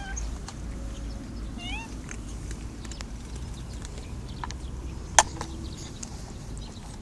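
Street cats giving a couple of short meows in the first two seconds, with scattered light clicks and one sharp click about five seconds in.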